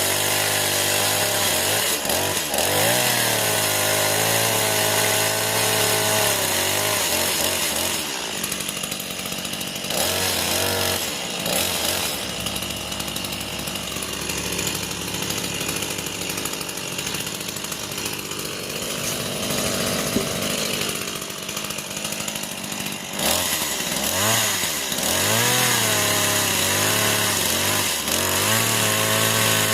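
Small Stihl two-stroke chainsaw revving up and down. From about eight seconds in it runs under load, cutting through wood for about fifteen seconds, then it revs freely again.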